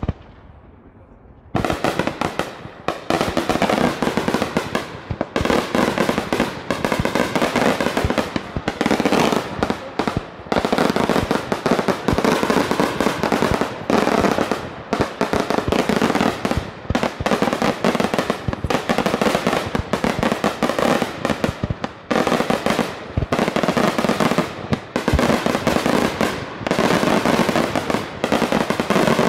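Daytime fireworks barrage: one sharp bang right at the start, then from about a second and a half in, a dense, continuous rapid-fire crackle of firecrackers and shells going off, with only brief gaps.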